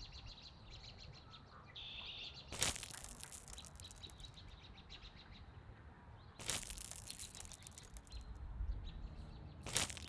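Birds chirping in rapid, high trills. Over them come three louder rustling swishes: one about two and a half seconds in, a longer one about six and a half seconds in, and a short one near the end.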